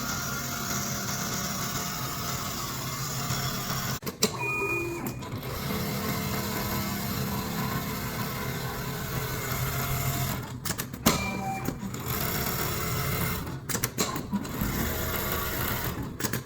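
Large industrial lockstitch template sewing machine stitching steadily at speed. There are brief breaks with sharp clicks about four, eleven and fourteen seconds in.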